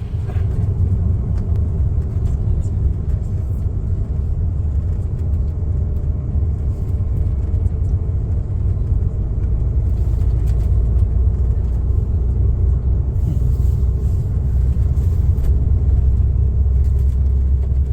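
Bus engine and road noise: a steady low rumble.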